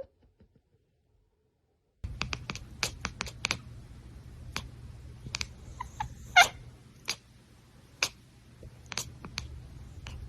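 A house cat gives one short meow about six seconds in, among scattered light clicks and knocks over a steady low hum.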